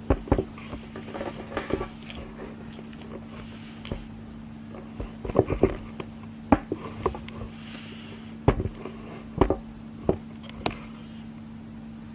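Scattered knocks and clicks, with brief rustles, over a steady low hum in a small room.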